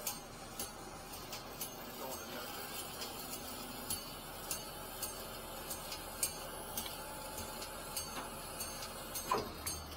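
Faint, irregular light clicks and ticks, a few each second, over a low steady background.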